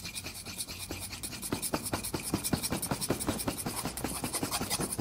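Rapid scratching strokes, about eight to ten a second, growing louder about a second and a half in.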